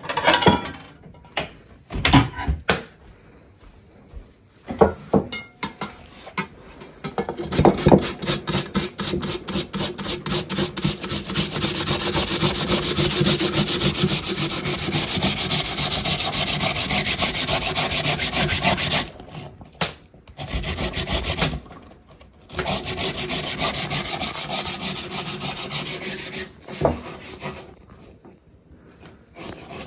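Raw peeled potatoes grated by hand on a metal box grater into an enamel bowl: fast, even rasping strokes. The rasping comes in two long runs with a short pause between, after a few knocks and clatters at the start.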